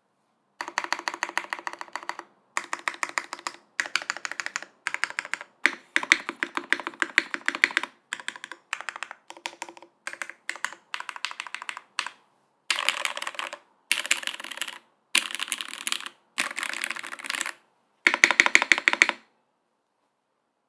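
Typing on a TGR 910 mechanical keyboard with lubed Cherry MX Black Hyperglide linear switches, a brass full plate, top mount, no foam, and GMK keycaps. Runs of fast keystrokes come in bursts of a second or two, separated by short silent pauses. The typing stops about nineteen seconds in.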